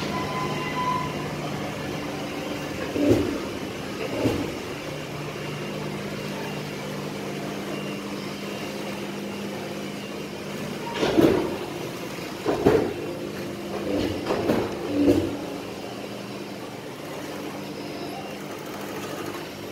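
Steady hum of electric sewing machine motors running in a workroom. Several short louder sounds break in, two near the start and a cluster a little past the middle.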